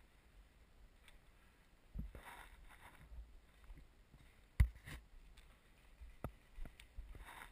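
Rustling and scuffing of a paintball player shifting position on dry forest litter, with several sharp knocks, the loudest just past halfway.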